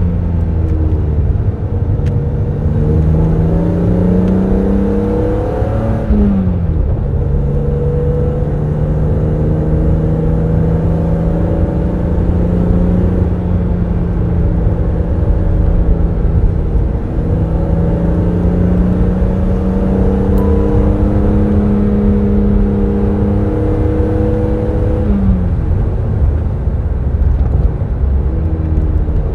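BMW Z3 M Roadster's 3.2-litre inline-six pulling through the gears. The revs rise and then drop sharply at a gear change about six seconds in. The engine note then climbs slowly for most of the stretch, with another sharp drop at a gear change near the end, over a steady low wind and road rumble.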